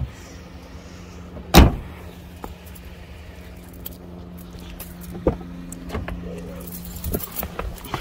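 A car door shut with one loud thump about a second and a half in, then a few lighter clicks and knocks of door latch and handling, over the steady low hum of the car's engine idling.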